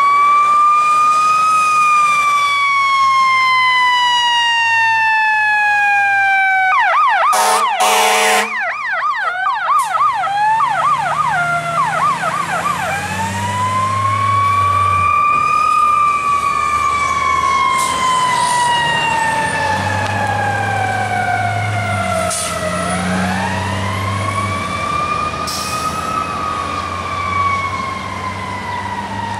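Fire truck siren wailing, each cycle rising quickly and then falling slowly in pitch, switched about a third of the way in to a rapid yelp with a few sharp blasts, then wailing again twice.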